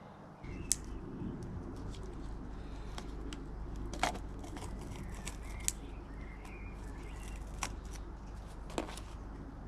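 Backlapping paste being worked onto the blades of a cylinder mower: irregular scraping and sharp clicks over a steady low hum that starts about half a second in.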